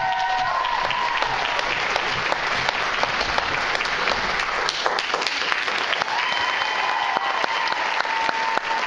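An audience applauding with dense, steady clapping, joined by a few long high calls from the crowd near the start and again near the end.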